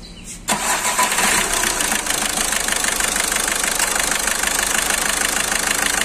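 Skoda Rapid's four-cylinder common-rail diesel engine starting about half a second in, then settling into a steady idle by about two seconds. It has just had its faulty cylinder-two injector serviced and refitted to cure a misfire.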